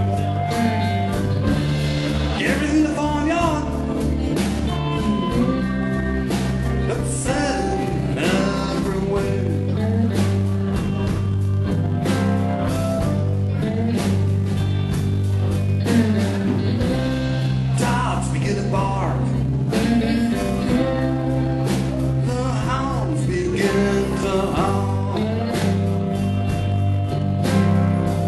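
Live blues band playing, with drums, bass guitar, electric guitar and a voice singing over them.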